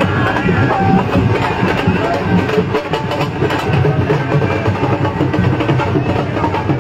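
Loud, dense percussion-led music with many fast drum strokes, running steadily throughout.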